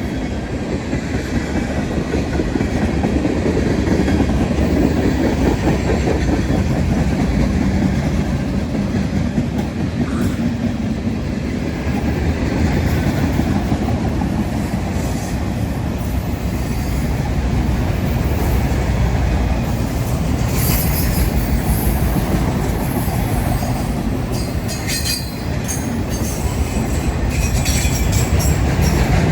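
Freight train cars rolling past, with steady rumble and clickety-clack of the wheels on the rails. In the last third come several short, high-pitched wheel squeals.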